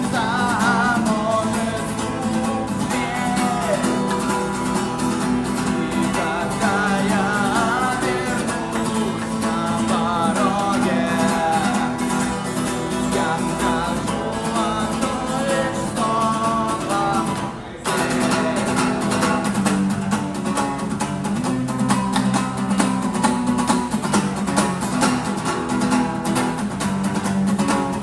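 Acoustic guitar strummed steadily, playing a song. A wavering melody line sits over it for most of the first two-thirds. The sound drops out briefly about eighteen seconds in, then the strumming carries on.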